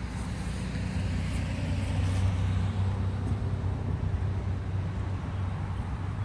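A motor vehicle's engine running with a steady low hum, growing a little louder about two seconds in and easing slightly after.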